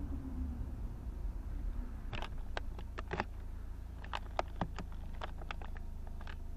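Car driving: a steady low road and engine rumble, with a scatter of short, sharp clicks at irregular intervals from about two seconds in.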